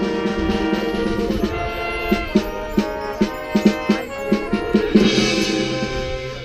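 High school marching band playing: held chords from the winds and brass, a run of drum strokes from about two seconds in, and a cymbal crash about five seconds in.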